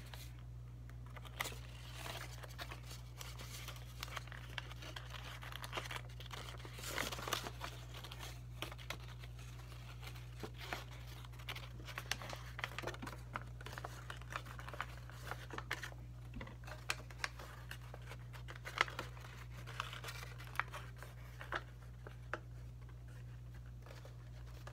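A sheet of white printer paper being folded and creased by hand, crinkling and rustling in irregular bursts.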